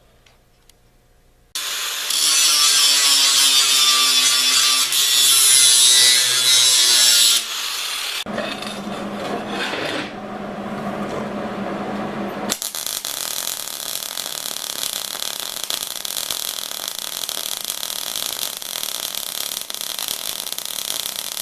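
Angle grinder grinding steel plate and square tubing, starting about a second and a half in. It runs loudest for the first six seconds with a shifting whine, changes sound around the eighth and twelfth seconds, then grinds steadily.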